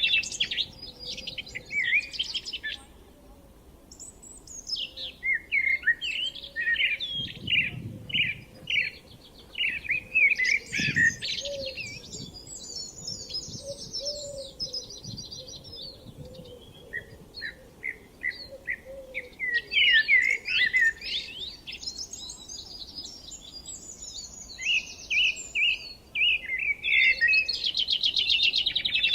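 Songbirds singing and chirping, several voices overlapping in bursts with short lulls between, and a couple of soft low rumbles about a third of the way in.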